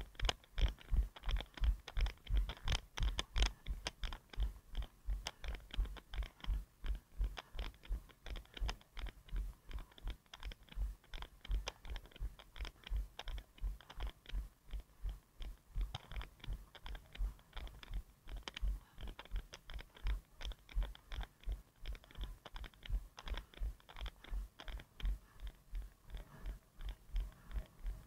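A runner's footfalls jolting a head-mounted action camera: a steady stream of dull thumps, about three a second, at running cadence, with light scuffing on each step.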